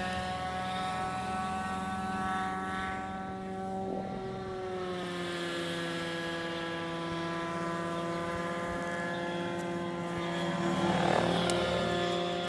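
A small propeller engine droning at a steady pitch, dipping slightly about four to five seconds in, in the manner of a model aircraft flying. A brief rustle of noise comes near the end.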